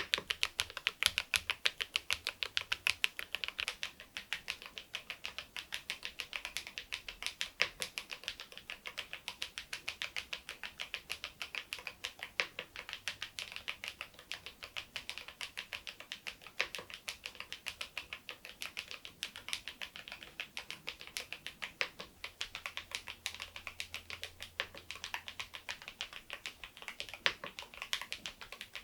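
Continuous typing on a Keysme AIM04 HE aluminium keyboard with magnetic Hall-effect switches, fitted with replacement keycaps: a fast, even run of key clacks.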